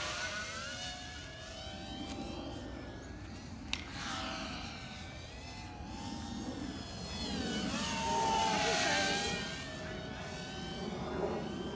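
FPV racing quadcopter flying: its motors and propellers whine, the pitch rising and falling with the throttle, growing louder about eight seconds in as it comes closer.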